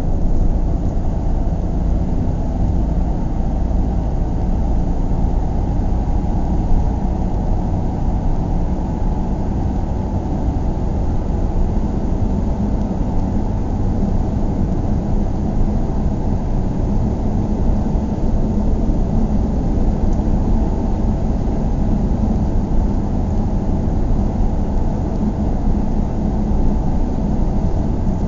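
Car running steadily: a continuous low rumble with no revving, gear changes or sudden events. A low hum within it grows a little stronger about halfway through.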